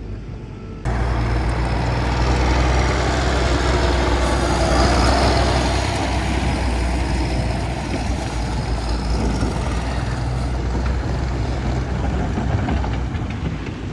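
1971 Massey Ferguson 1130 tractor's diesel engine running steadily, coming in abruptly about a second in.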